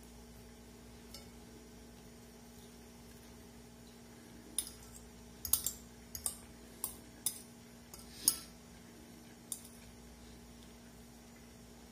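Metal fork clinking and scraping against a ceramic bowl while eating rice, about eight short sharp clinks through the second half, the loudest a little past the middle. A faint steady hum runs underneath.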